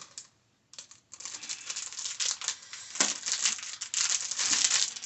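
Packaging crinkling and rustling continuously as it is opened by hand, after a brief near-silent pause about the first second.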